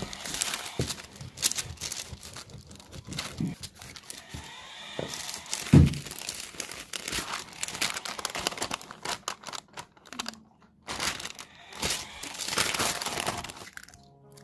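Sheets of baking paper rustling and crinkling as they are handled and peeled back from rolled-out dough, in irregular bursts. A single heavy thump stands out about six seconds in.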